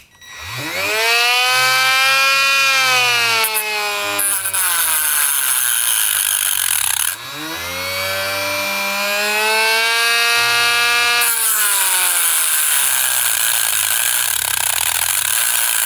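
Dremel rotary tool with a small cutting disc cutting a slot into a broken muffler screw stub. Its whine rises as it spins up, sinks as the disc bites, and gives way to a loud hissing grind. It stops about seven seconds in, then spins up and cuts again.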